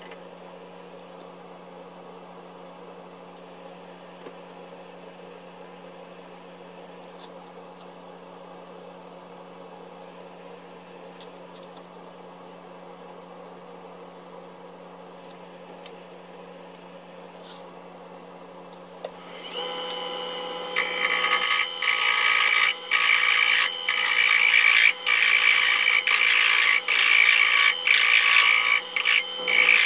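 Wood lathe running with a steady hum as the spindle spins. About twenty seconds in, sandpaper pressed against the turning wood starts a loud scratchy rasp that comes and goes in short strokes with brief breaks.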